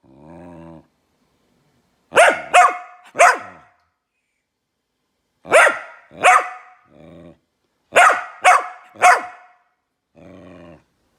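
Mini goldendoodle puppy vocalizing for attention: a short low growl, then a quick run of three sharp barks, two more barks and a brief growl, another three barks, and a last low growl near the end.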